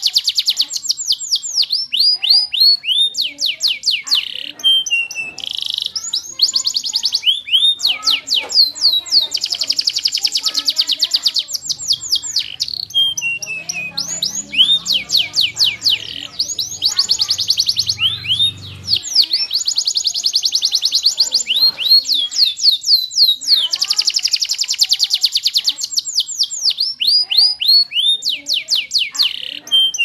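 Domestic canary singing a long song of rapid trills and rolls: fast runs of repeated down-sweeping notes, with short pauses between phrases.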